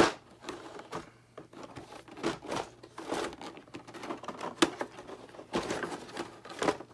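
Thin clear plastic blister packaging being handled and lifted out of a figure box: irregular crinkles, rustles and light clacks of plastic, a few of them sharper and louder.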